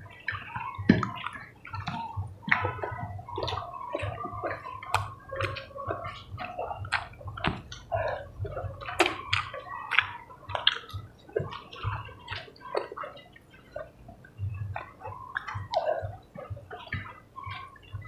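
Close, wet chewing and lip-smacking of two people eating chicken and rice with their hands: a steady run of short wet smacks and clicks.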